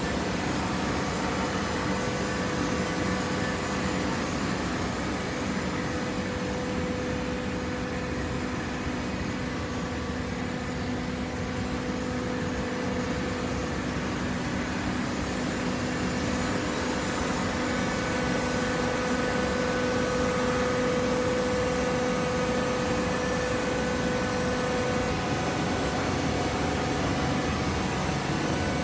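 Vertical hydraulic paper baler running, its electric motor and hydraulic pump giving a steady hum with a whine, a little louder in the second half.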